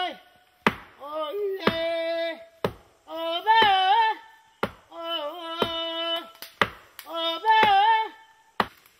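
Stone axe chopping into the wet buttress root of a mangrove tree: a sharp strike about once a second, nine in all. Between the strikes a voice sings long, wavering held notes.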